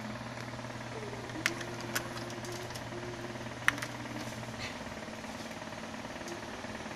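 Sony TC-K222ESJ three-head cassette deck with its tape transport running, a steady mechanical hum with three sharp mechanism clicks, at about one and a half, two and nearly four seconds in, as play engages.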